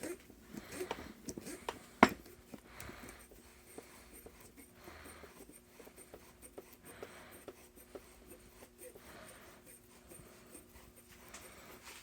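A steel jig bore vise being worked by hand: one sharp metallic click about two seconds in, then faint scraping and small clicks as its stiff, freshly greased screw is turned. Soft breathing recurs about every two seconds.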